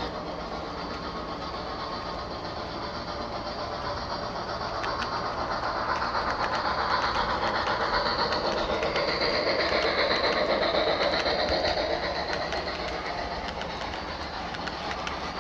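Model train running by on its track: the GS-6 steam locomotive model and its string of cars, with a steady running noise and many light clicks. It grows louder as the locomotive passes, about a third of the way in, and eases off as the cars follow.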